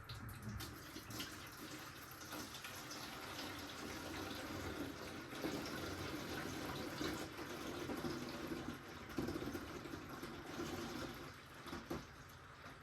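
Diesel fuel being poured into a diesel heater's fuel tank, a steady pouring that stops about a second before the end.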